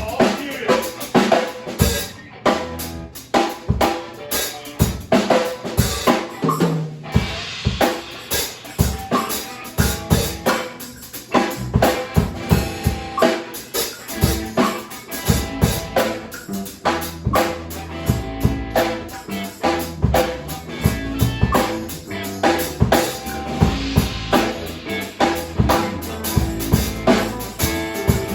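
Music with a driving drum-kit beat, bass drum and snare strokes over held instrumental notes.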